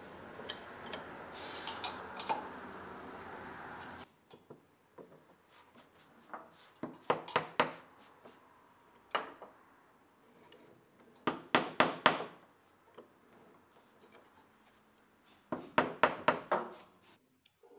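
Small hammer tapping short wooden pegs into glued holes in a Chinese cork oak (abemaki) board: quick sharp taps in groups of three to five, several times over, starting about six seconds in. Before that there is only a faint steady hiss with a few light clicks.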